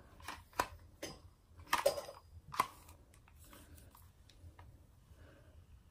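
Handling noise from styling hair with a flat iron: a few soft clicks and rustles in the first three seconds, then quiet room tone.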